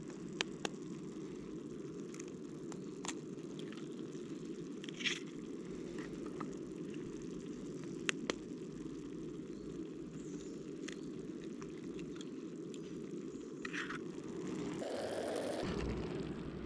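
Camping gas stove burner running with a steady low rush under a pot of food, while eggs are cracked one at a time against the metal rim of the pot, giving short sharp taps every few seconds. A brief louder rush of noise comes near the end.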